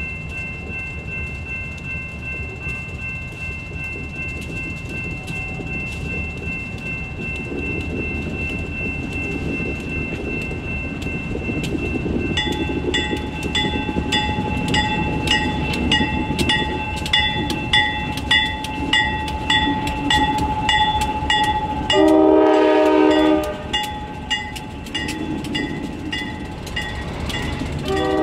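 Ohio Central GE B23-7R diesel locomotives drawing near and passing, their engines rumbling louder as they close in. A bell starts ringing about twice a second near the middle. A short locomotive horn blast sounds near the end, and a second one begins just as it closes.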